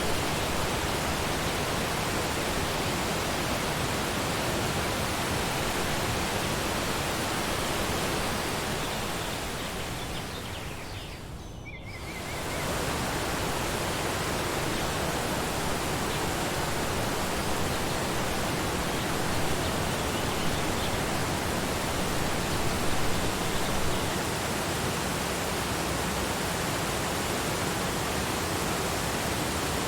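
Waterfall rushing, a steady, even roar of falling water. About ten seconds in it fades down briefly, then comes straight back to full strength about two seconds later.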